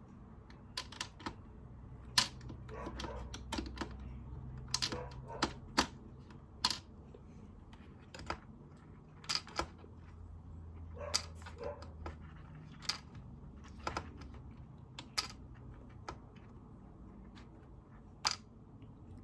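Operation game tweezers clicking and tapping against the plastic board in irregular light clicks, as pieces are fished for.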